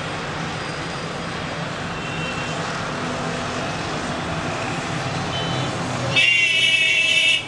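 Boeing 777-300ER's GE90 jet engines at takeoff thrust as the airliner climbs out: a steady, distant roar that grows slightly louder. About six seconds in, a loud high-pitched blare cuts in over it for about a second and stops suddenly.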